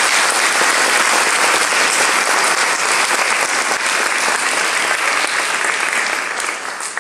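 Congregation applauding: dense, steady clapping that dies away near the end.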